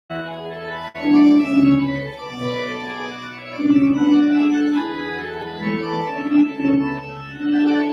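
Organ music playing slow, sustained chords with a melody line above, as a processional. It starts abruptly after a brief gap, and there is a small click about a second in.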